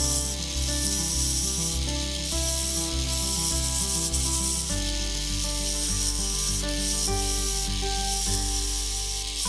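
Background music with changing sustained notes, over a steady hiss of sandpaper rubbing against a crepe myrtle goblet stem spinning on a wood lathe.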